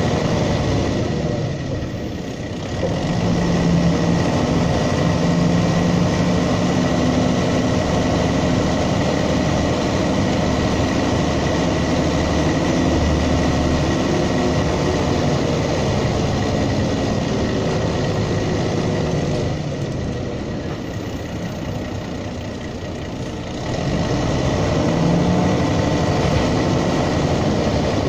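Mercedes-Benz O305 city bus from 1985 running on its route, heard from inside: its OM407 diesel engine pulls with a steady hum over road noise, under a thin steady high whine. It eases off twice, briefly about two seconds in and for a few seconds past the two-thirds mark, then picks up again.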